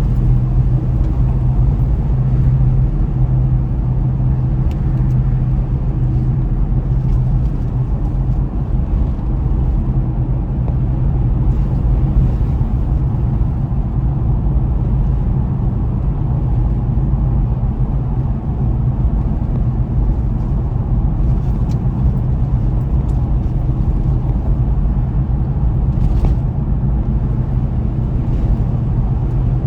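Car driving at a steady pace: a continuous low rumble of engine and tyres on the road, with a steady low hum and a few faint ticks.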